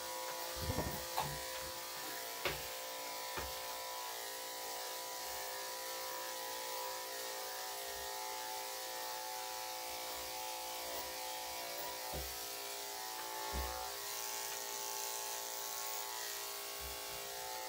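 Corded electric dog-grooming clippers running with a steady hum while cutting the bulk out of a puppy's thick coat. A few brief low knocks come through, about a second in and again near the end.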